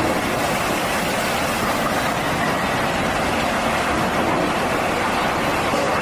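Excavator's diesel engine running steadily, with no change in pitch or loudness.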